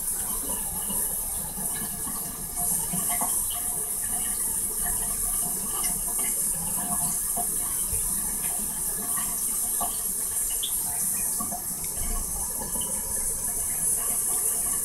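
Thin stream of water running from a bathroom faucet and splashing into a ceramic vessel sink: a steady hiss that grows a little louder about three seconds in.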